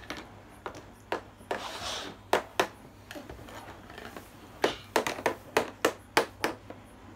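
Small plastic Tupperware Mini toy cups, saucers and plates being handled and set down on a plastic table: light clacks and knocks, with a quick run of them, about four or five a second, in the second half, and a brief rustle about two seconds in.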